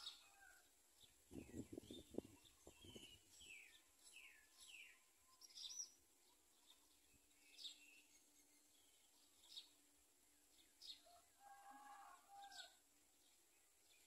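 Small birds calling: short high chirps repeating about every second or two, with several falling whistled notes in the first few seconds. A few low thumps sound about one to three seconds in.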